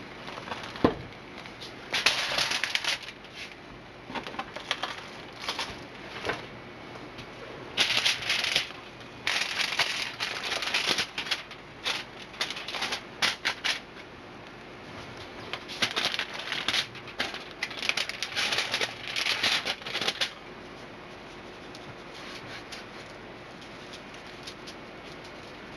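Plastic wrap and aluminium foil crinkling in intermittent spells as raw salmon fillets are unwrapped and handled, with a sharp tap about a second in. The crinkling stops for the last few seconds.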